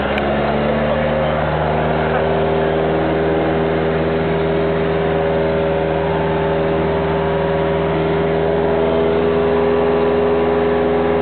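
Cessna 172R's four-cylinder Lycoming engine and propeller droning steadily, heard inside the cabin. The note picks up slightly in the first second or two, then holds level.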